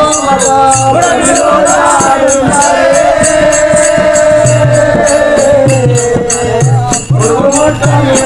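Telugu yakshaganam (folk-theatre) song: a singer holds one long note through the middle, over a steady quick metallic beat and low drum strokes.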